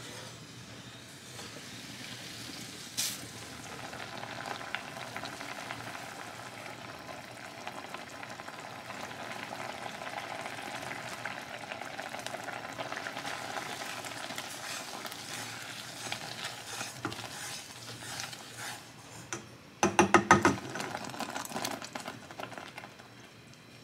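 Pumpkin oatmeal porridge simmering and sizzling in a saucepan, a steady bubbling hiss. About 20 seconds in comes a short, rapid clatter, the loudest sound.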